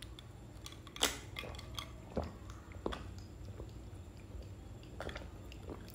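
A person drinking from a glass of iced cola, with a few faint swallows and gulps spaced out over several seconds, the first about a second in.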